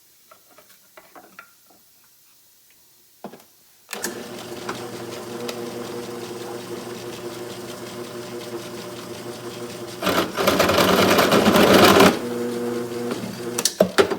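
Small drill press starting with a click about four seconds in, its motor running with a steady hum. About ten seconds in, a loud rattling chatter for about two seconds as the bit grabs and the workpiece comes loose.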